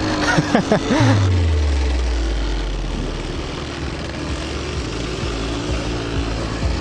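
Motorcycle engine coming down off the revs about a second in, then idling with a steady low drone.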